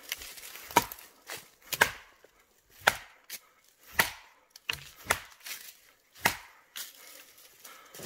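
Six sharp wooden knocks about a second apart, a stick striking tree trunks to announce his presence to the forest's animals.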